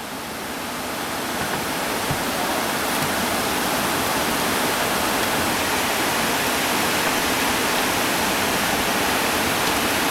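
Rushing whitewater of a river rapid at high water: a steady, even rushing noise that grows louder over the first three seconds and then holds.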